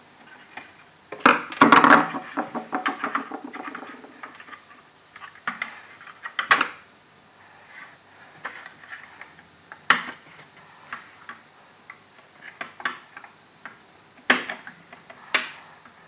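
Plastic casing of a Hoover VHD9163 washing machine's electronic control board handled by hand: a burst of rattling and scraping about a second in, loudest near two seconds, then scattered single clicks and knocks.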